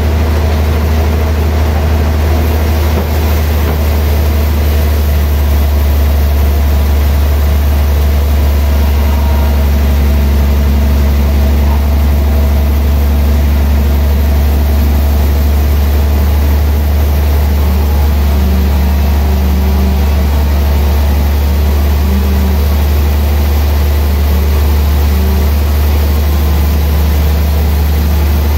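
Large log band sawmill running with a loud, steady low hum from its drive and spinning blade.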